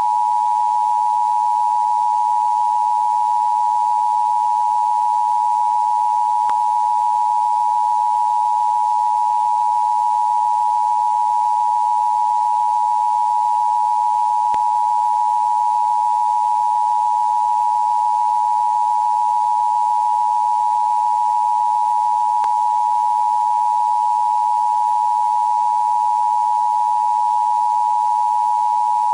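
A single steady electronic tone of about 1 kHz held unbroken, with a faint tick about every eight seconds: an emergency alert broadcast's attention tone while it waits to give more instructions.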